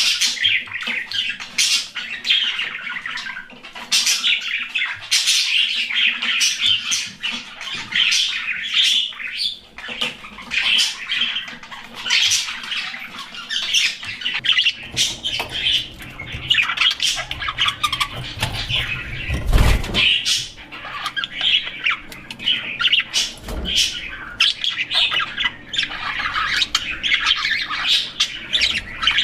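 A flock of budgerigars chirping and chattering continuously in rapid, overlapping calls. A dull thump sounds about two-thirds of the way through, with a smaller one a few seconds later.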